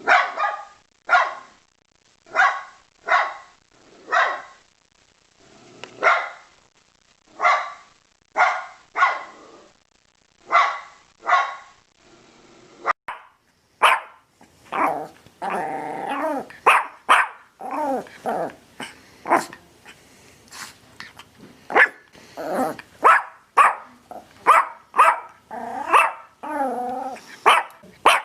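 A dog barking in single barks about once a second. About halfway through, a different dog takes over, barking in quicker, irregular barks with growling in between.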